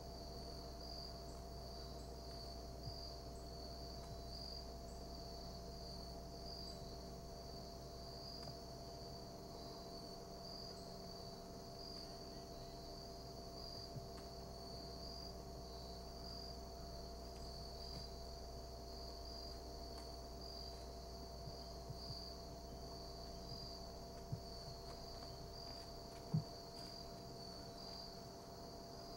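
Faint, steady high-pitched chirring of insects, with a low steady hum underneath and a few soft ticks, the loudest one near the end.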